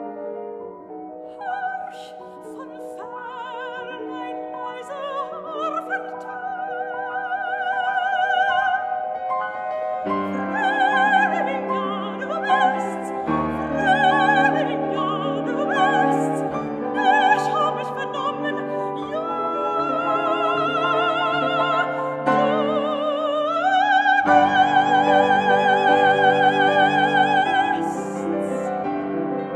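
Classical soprano singing a German art song in full operatic voice with marked vibrato, accompanied by piano. The line climbs about three-quarters of the way through to a long, loud high note that ends near the close.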